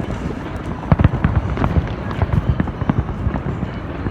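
Fireworks display: rapid, irregular bangs and crackling over a continuous rumble, with the loudest bangs about a second in.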